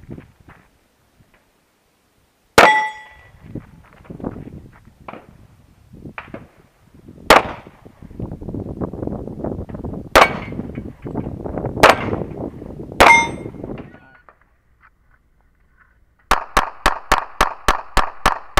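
Handgun shots fired one at a time a second or more apart, the first and last of them followed by a short ring of a steel target being hit. Near the end comes a fast, even string of about ten shots, four to five a second.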